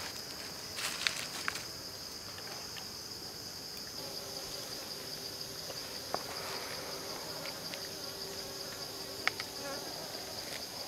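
Steady high-pitched drone of an outdoor insect chorus, with a few sharp crackles from the wood fire under the pan.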